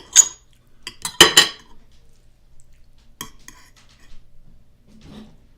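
Eating utensil clinking and scraping against a plate of food: a sharp knock at the start, a loudest cluster of knocks about a second in, then a few lighter clicks.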